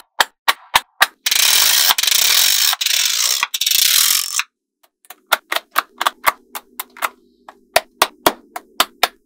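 Small magnetic balls clicking sharply as they snap onto a wall of magnetic balls, one click about every half second. From about a second in, a dense rattling crackle of the balls for about three seconds. Then the quick clicks resume in series.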